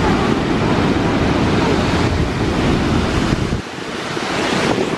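Wind buffeting the microphone over the rush of heavy surf churning in a rocky chasm below. The low wind rumble drops away sharply about three and a half seconds in, leaving the surf's rush.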